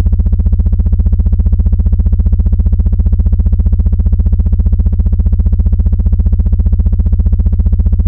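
A loud, low electronic drone with a fast, even pulse, presented as a star's sonified vibrations: brightness oscillations measured by astronomers and converted into audible sound. It cuts off abruptly at the end.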